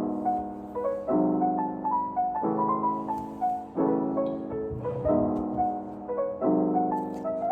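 Background piano music: soft chords struck about every second and a half under a simple melody line.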